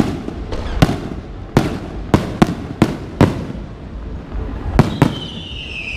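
Fireworks going off: a string of about nine sharp bangs at irregular intervals, each trailing off with an echo. Near the end a high whistling tone comes in.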